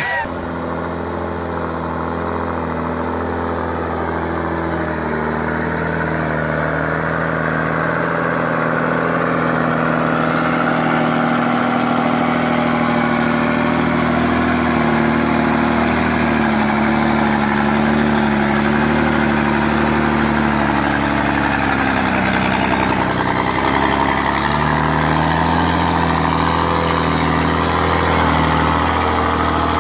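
Heavy log truck's diesel engine running steadily while hauling a load of logs heavy enough to lift the front wheels off the ground. The engine note wavers in pitch partway through, dipping briefly and then settling again.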